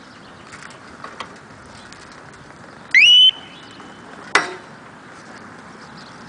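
Harley-Davidson Nightster's factory security alarm giving one short, loud rising warning chirp about three seconds in, set off by the bike being rocked without the key fob: the first-stage warning, not the full alarm. A single sharp knock follows about a second later.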